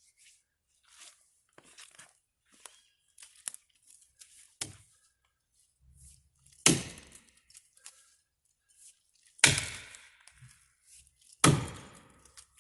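Felling axe chopping into the trunk of a dead ash tree: three heavy strikes about two to three seconds apart in the second half, each with a short ringing tail, after a few faint knocks and rustles.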